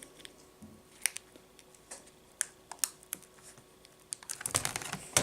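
Small plastic clicks and taps from a laptop screen panel and its video cable being handled as the cable is plugged into the panel's connector. There are scattered single clicks, then a quick run of clicks and rustling near the end.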